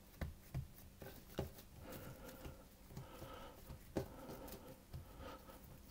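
Soft handling noises of a plastic-wrapped log of biscuit dough being pressed and tapped on a worktop: a few short thumps, the clearest about a quarter second in, near half a second, about a second and a half in and at about four seconds.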